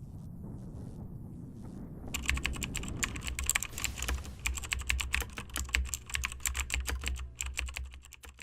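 Fast typing on a mechanical keyboard, a dense run of key clacks starting about two seconds in after a low rumble.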